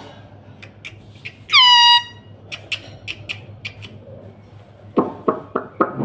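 Rose-ringed (Indian ringneck) parakeet giving one loud shrill call about a second and a half in, a note that drops sharply and then holds steady for half a second. A few sharp clicks follow, then a quick run of four or five short, lower-pitched calls near the end.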